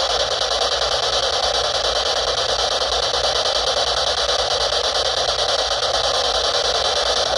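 SB-7 spirit box sweeping rapidly through radio stations, giving a steady, loud rush of static with radio fragments flickering past.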